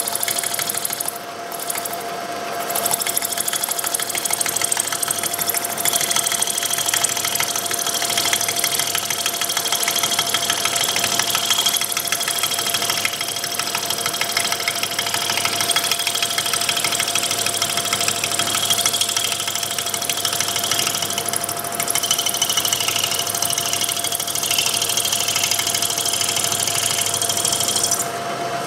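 Milling machine end mill cutting a helical flute into a clear plastic rod turning in a dividing head: a steady machine hum with a continuous high whine and a dense rasp of cutting, louder from about three seconds in.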